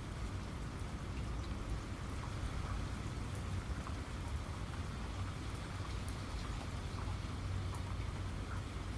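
Steady rain falling, with scattered sharp ticks of single drops over a steady low rumble.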